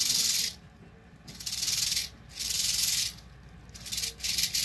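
Western diamondback rattlesnake buzzing its tail rattle in a steady high hiss. The hiss breaks off three times and goes back to short stuttering pulses near the end.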